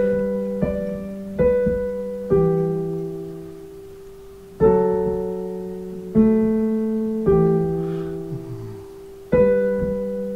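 Digital piano playing a slow passage of chords. Each chord is struck and left to ring and fade before the next, about eight in all, with gaps of up to two seconds between them.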